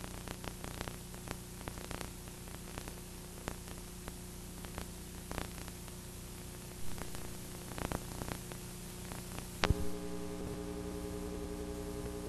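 Steady electrical hum and hiss with scattered small clicks and crackles. Near the end a sharp click, after which the hum changes to a different set of steady tones.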